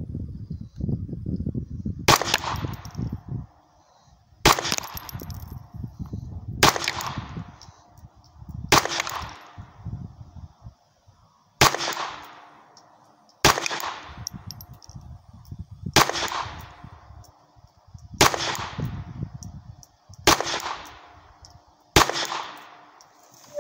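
SIG Sauer Mosquito .22 LR pistol firing ten slow single shots, about two seconds apart, each a sharp crack with a short ring-out. The tenth shot empties the magazine and the slide locks open.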